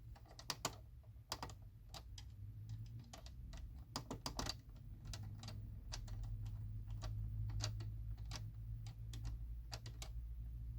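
Irregular clicks from a washing machine's controls being worked, over a steady low hum.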